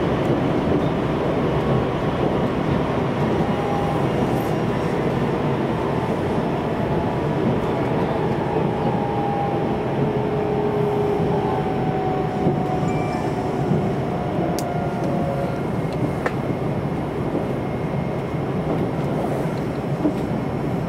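Inside a JR Central 373 series electric train running along the line: a steady rumble and hiss of the running gear, with faint tones that slowly fall in pitch through the middle.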